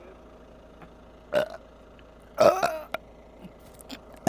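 A woman burping twice: a short burp about a second and a half in, then a longer, louder one about two and a half seconds in.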